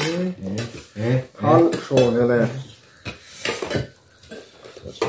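Metal spoons clinking and scraping against stainless steel bowls and plates, with a voice talking over the first half.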